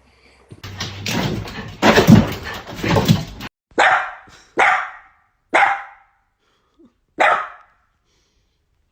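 A dog barking. It begins with a loud, dense, noisy stretch of about three seconds, the loudest part, followed by four single barks spaced about a second apart.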